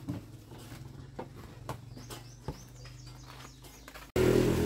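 Plastic basins and shop goods knocking and clicking as they are handled, a few sharp knocks spread out, with some faint high chirps in the middle. About four seconds in, background music cuts in suddenly and is the loudest thing.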